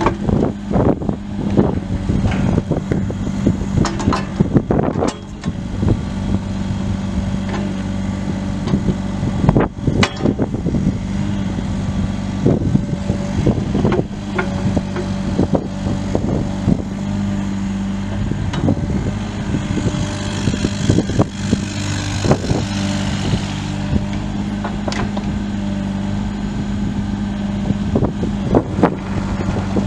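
Volvo ECR38 compact excavator's turbo diesel engine running steadily, with many metallic clanks and knocks, most of them in the first half. A hissing rush comes in for a few seconds about two-thirds through.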